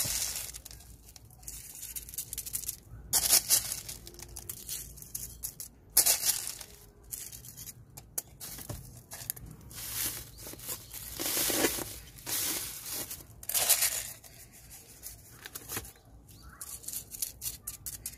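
Irregular gritty scraping and rustling as masato grit is spooned and spread over a potted succulent's soil, with the plastic sheet under the pot crinkling; the sound comes in short, uneven bursts.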